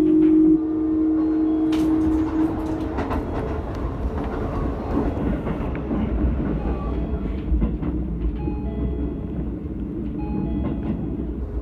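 Keisei 3700 series electric train running along the track, heard from the front cab: a steady rumble of wheels on rail with scattered clicks over rail joints and points. A steady whine is heard over the first few seconds and then fades into the running noise.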